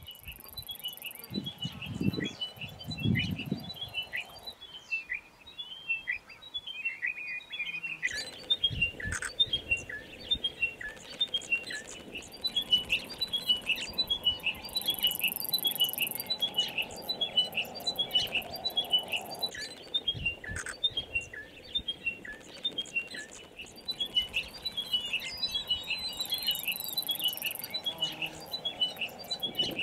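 Many small birds chirping in rapid, overlapping short calls, several a second. A couple of low thuds come near the start.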